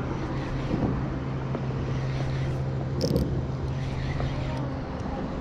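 Bow-mounted electric trolling motor running with a steady low hum that cuts off about five seconds in, over wind noise on the microphone. A short sharp click comes about three seconds in.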